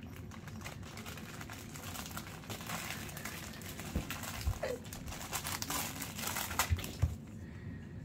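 Plush fish cat toy crinkling as a cat claws and bites at it, with a few dull thumps mixed in; the crinkling stops about a second before the end.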